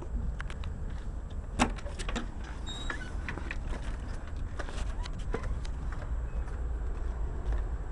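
Steady low hum of a running compressor, with scattered small clicks and knocks over it, the loudest about a second and a half in.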